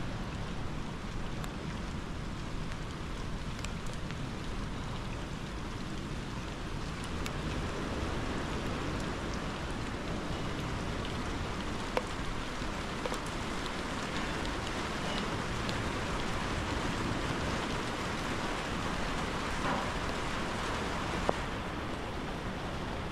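Steady rain falling and pattering on surfaces, a rushing hiss that swells through the middle and thins near the end, over a constant low rumble. Two sharp taps stand out, about halfway and near the end.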